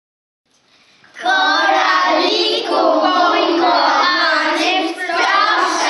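A group of children singing together, starting suddenly about a second in and running on in long phrases.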